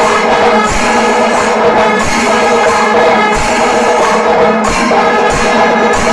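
Kerala panchavadyam temple ensemble playing: kombu horns sounding held notes over a steady, dense beat of timila drums and ilathalam cymbals.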